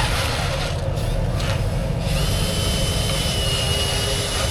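Electric motors and gearboxes of a radio-controlled construction model running, with a steady high whine that comes in about two seconds in, over a constant low rumble.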